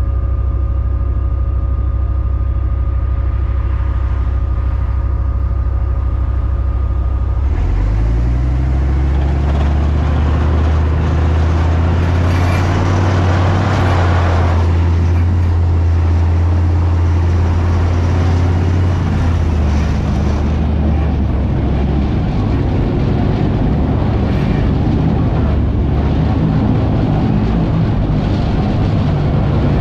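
Leopard 1A5 tank's ten-cylinder multi-fuel diesel engine idling, then rising in pitch about a quarter of the way in as the tank pulls away, and running steadily as it drives.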